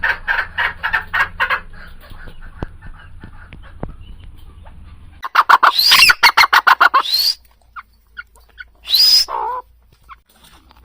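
Farmyard poultry calling: a fast run of repeated clucking calls, then after a cut a louder fast run of calls with shrill rising squeals, and one short shrill call about nine seconds in.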